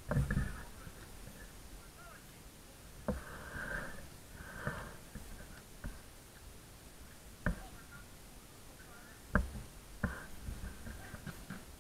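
Sounds of an amateur football match: faint shouts from players and a few sharp thuds of the ball being kicked.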